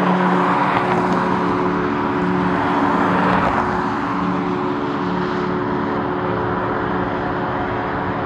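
Jet airliner's engines: a steady whine over a broad roar that swells over the first few seconds and then eases off.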